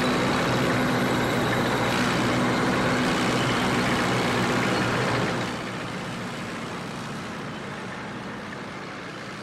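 A vehicle engine running steadily, a low hum under a noisy rumble that drops noticeably in level about five seconds in.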